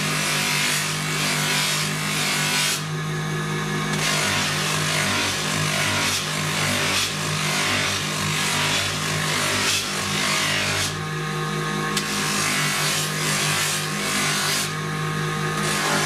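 Electric bench motor spinning a buffing wheel with a steady hum, while a wooden cricket bat is pressed against the wheel, making a loud rubbing hiss. The hiss breaks off briefly three times while the motor hum carries on.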